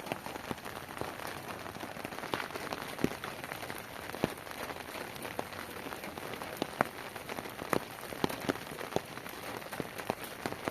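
Heavy rain falling steadily, a dense patter scattered with many sharp individual drop hits.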